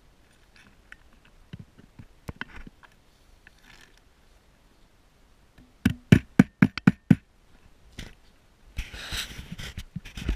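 A hammer tapping a metal roof clip into place on asphalt shingles, about eight quick sharp strikes in just over a second. Near the end there is about a second of gritty scraping of metal against the shingles.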